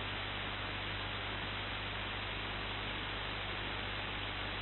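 Steady electronic hiss with a low mains hum and no distinct sounds in it: static from the recording chain rather than any sound of the station.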